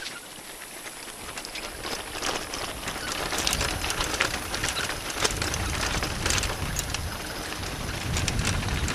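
Bicycle rolling fast down a gravel dirt road: the tyres crunch over loose stones and the bike rattles in many small clicks, while wind buffets the microphone. It grows louder from about two seconds in as the bike picks up speed.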